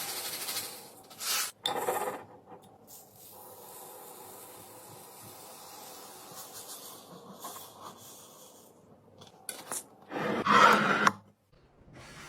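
Household items being handled during a kitchen restock: rubbing and scraping, with a few short clatters and a louder burst of clattering about ten seconds in.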